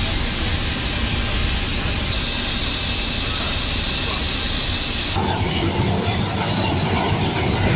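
Steady, loud rushing noise of jet aircraft engines running, with a faint high whine in the first couple of seconds; the sound changes abruptly about two seconds in and again about five seconds in.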